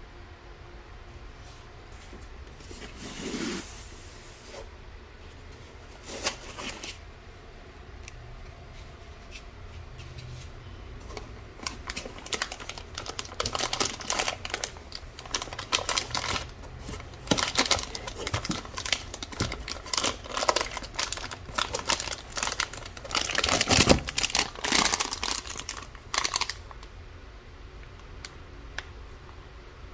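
Hands handling packaging and parts: irregular clicks, rattles and crinkling, sparse at first, then busy from about twelve seconds in until near the end, with the loudest bit around twenty-four seconds.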